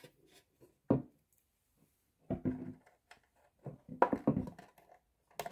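Hands handling a plastic RC toy boat on a wooden table while fitting its battery: a few scattered knocks and clicks of plastic, the loudest about four seconds in.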